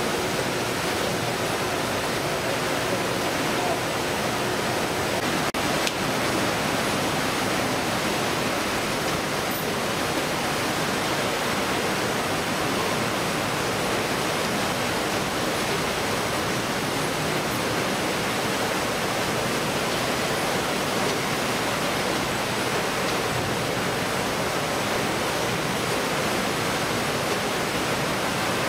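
Steady, even rushing din of a fish-processing line: conveyor belts and machinery running, with a water-like hiss.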